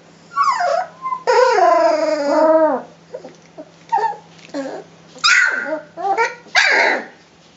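Three-week-old Rhodesian Ridgeback puppies whining and yelping as they play. There is one long, wavering whine about a second in, then shorter yips and two harsher squeals near the end.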